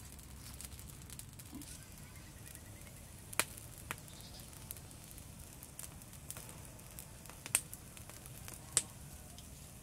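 Small wood fire crackling, with a few sharp pops now and then, the loudest after about three and a half seconds and near the end.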